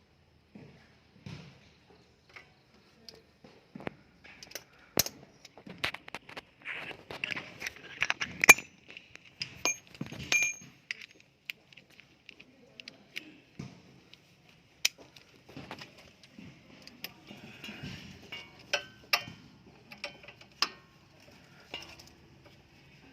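Metal hand tools clinking and tapping on metal: irregular sharp clicks and ringing clinks, with quicker runs of clicks in the last few seconds.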